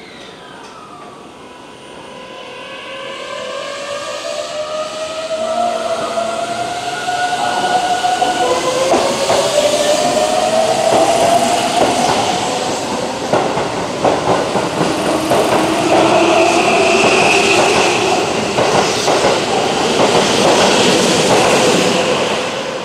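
Keihan 7000-series electric train moving off and passing close by. Its traction motor whine climbs in pitch as it gathers speed, growing louder, with the wheels clicking over rail joints as the cars go by.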